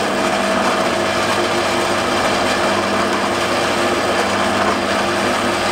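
Bench drill press running steadily with a constant hum, its bit boring a 7 mm test hole into a small strip of hardwood.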